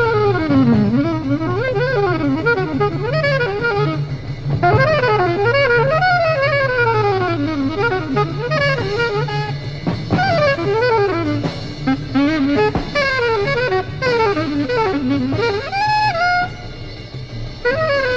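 Jazz in a bebop style: a saxophone playing fast runs that climb and fall, over low sustained notes underneath.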